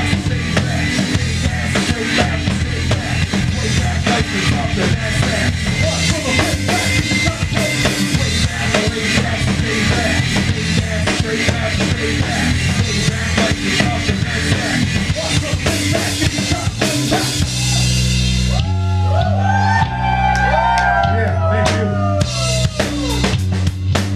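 Live band playing an instrumental break in a hip-hop/rock song: a drum kit drives hard over bass and guitar. About 18 seconds in, the drums drop out, leaving the bass and a lead line with bending, sliding notes, and the drums come back in near the end.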